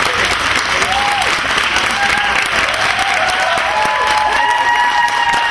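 Audience applauding steadily, with a few held pitched tones rising above the clapping in the second half.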